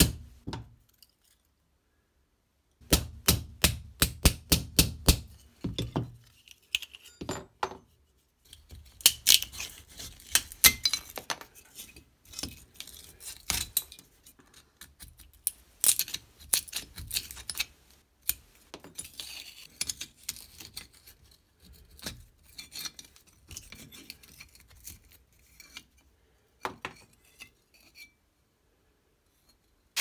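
Hammer tapping a steel pin punch to drive the pins out of a rusty pocket knife resting on a small anvil: sharp metal-on-metal clinks. A fast run of about a dozen taps comes a few seconds in, then lighter, scattered taps and clinks follow.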